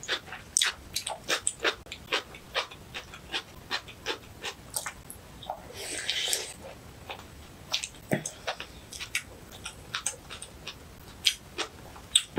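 Close-miked eating sounds: wet chewing of soup-soaked rice and seaweed, quick sticky mouth clicks several times a second, with one longer slurp about six seconds in.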